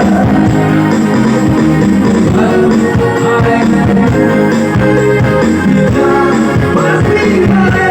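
Loud recorded music with singing and guitar, played through a sound system under test.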